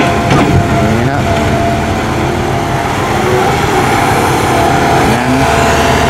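Heavy diesel machinery engine running steadily at a constant level, with a steady tone over it.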